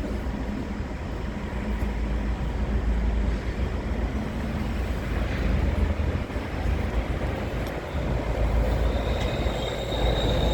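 Freight train of Eas open wagons rolling past, its wheels making a steady rumble on the rails. A high-pitched wheel squeal sets in near the end.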